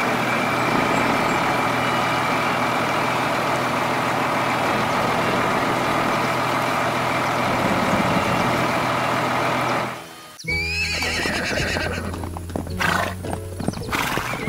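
A truck engine runs steadily and cuts off about ten seconds in. Then a horse whinnies with a rising call, and hooves clop several times.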